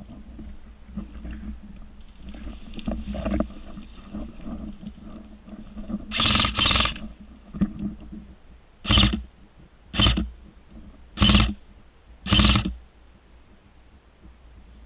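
Airsoft electric gun firing short full-auto bursts, with its motor and gearbox chattering: two close together about six seconds in, then four more about a second apart.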